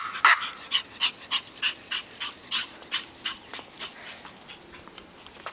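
Small Brussels Griffon barking in short, quick yaps, about three a second, loudest at the start and growing fainter.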